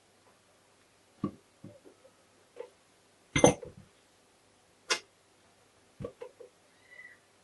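Metal gearbox parts of a Honda MT5 knocking and clicking against each other and the crankcase as they are fitted by hand: a handful of separate knocks, the loudest about three and a half seconds in.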